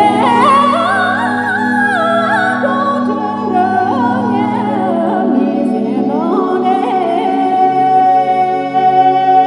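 Music: a singer's ornamented, wavering melody over a steady sustained backing drone, settling into one long held note near the end.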